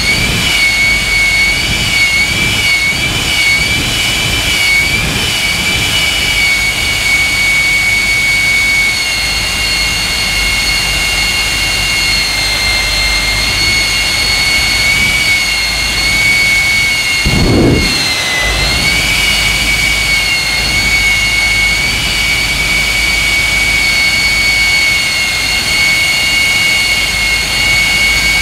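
Jet engines of a jet-powered semi truck running at idle with a steady high-pitched whine. About two-thirds of the way through the whine dips and recovers, with a short low burst.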